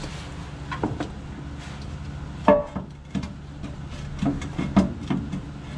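Scattered knocks and clunks of a floor jack and its block being handled and set under the car's engine, the loudest about two and a half seconds in and a quick run of them near the end, over a steady low hum.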